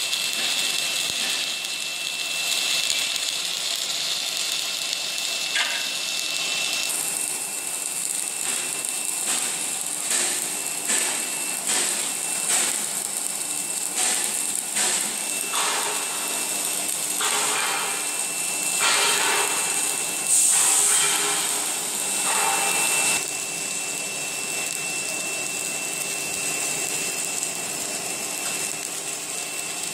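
Automatic submerged-arc welding machine at work on a steel beam: a steady mechanical hiss with a thin constant high whine. From about seven seconds in until a little after twenty-three seconds, irregular short hissing surges come and go over it.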